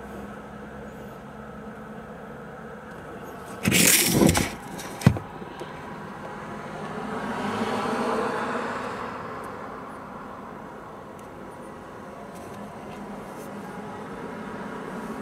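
Road traffic: a vehicle passing, swelling up and fading away around the middle, over a steady background hum. Before it, a short loud burst of noise, then a single sharp click.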